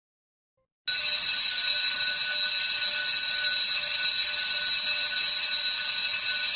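Electric alarm bell ringing loudly and without a break, starting about a second in: a time's-up signal marking the end of the test.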